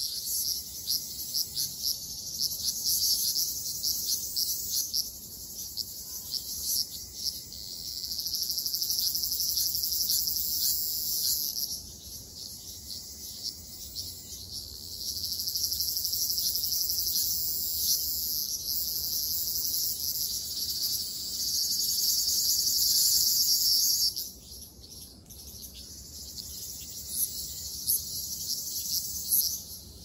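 Ryukyu large brown cicadas (Graptopsaltria bimaculata) singing in a continuous high, sizzling buzz. It swells louder about 8 seconds in and again from about 15 seconds, and drops back abruptly near 12 and 24 seconds.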